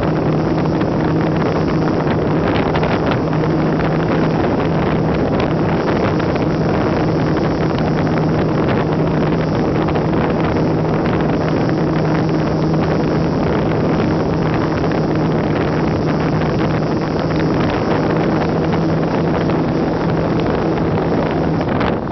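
Slow Stick RC airplane's electric brushless motor and propeller running at a steady pitch in flight, with wind rushing over the onboard microphone. The motor tone drops away near the end.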